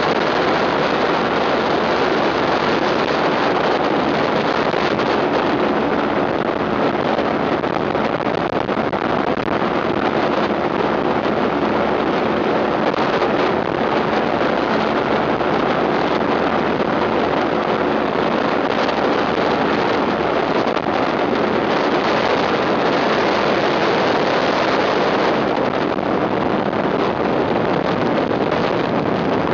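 Ultralight aircraft engine running steadily, with wind noise on the microphone.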